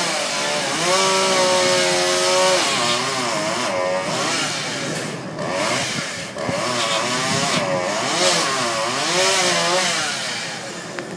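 Chainsaw running at high revs and cutting into a tree, its pitch repeatedly dipping and recovering as it works through the wood, with short let-offs along the way. It eases off near the end.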